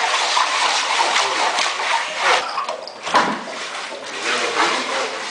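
Water splashing and sloshing in irregular spurts, with a single knock about three seconds in.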